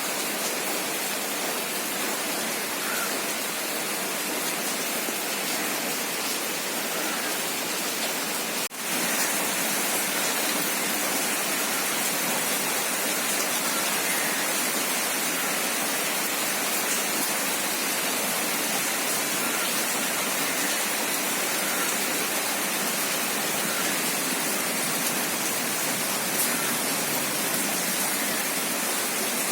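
Heavy rain falling in a steady hiss, with a short dropout about nine seconds in.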